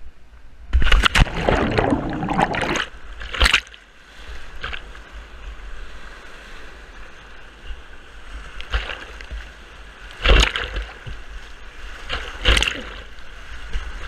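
Whitewater rapids rushing, with several loud splashes of water breaking over the microphone, the longest in the first few seconds.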